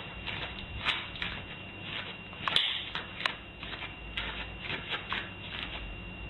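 A small dog's paws tapping and claws clicking as it steps about on a doormat and tiled floor: irregular light clicks, a few a second, with a faint steady high tone underneath.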